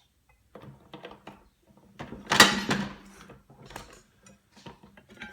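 The belt guard being worked loose and lifted off the head of an Atlas 73 drill press: a string of clanks and rattles, the loudest about two seconds in.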